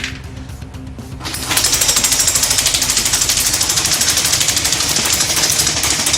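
Airsoft Steyr AUG rifle firing a long full-auto burst, a fast even stream of shots, starting about a second and a half in, over background music.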